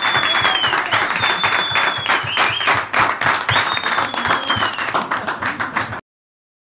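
A crowd applauding and cheering, with several long whistles that sag in pitch. The sound cuts off abruptly near the end.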